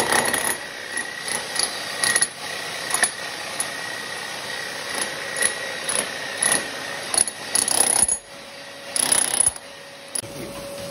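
Bosch electric demolition hammer chiselling a hole into an old floor, with a vacuum extractor hose sucking up the dust at the hole. The noise breaks off briefly about eight seconds in and gives way near the end to a steadier, lower hum.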